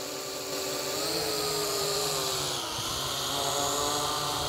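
Drocon DC-08 quadcopter's brushed motors and propellers buzzing in flight as it climbs. The whine rises in pitch about a second in and dips briefly near the end of the third second as the throttle changes.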